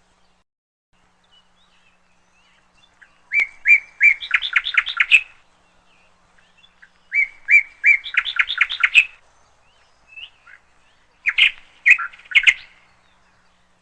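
A bird singing: two matching phrases, each a few clear notes followed by a quick run of about six rising notes, then a few sharp chirps near the end.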